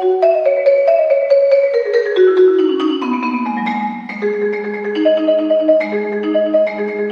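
Solo concert marimba played with four mallets: a run of struck notes stepping downward into the low register, then, from about four seconds in, held low chords rolled with quick repeated strokes.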